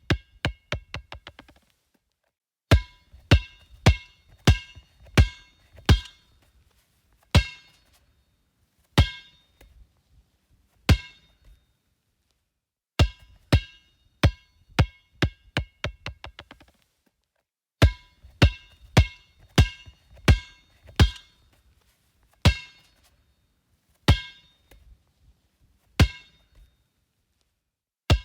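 Basketball bouncing: single bounces about half a second to a second apart, and a few runs where the bounces come faster and faster and fade as the ball settles. Each hit has a short ringing ping.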